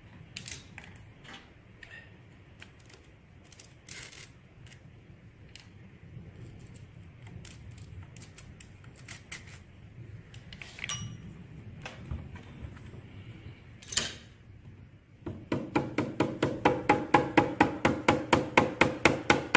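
Hand tools working on a Triumph 650 twin engine: scattered light metallic clicks and taps. About three-quarters of the way through, a fast, even run of sharp ringing clicks starts, roughly seven a second, and is the loudest sound.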